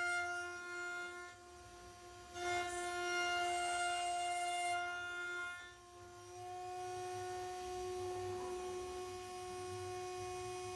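CNC router spindle at about 21,000 rpm driving a 6 mm two-flute carbide end mill through 6082 aluminium: a steady high whine over the cutting noise. It goes quieter twice, briefly, about a second and a half in and again near six seconds.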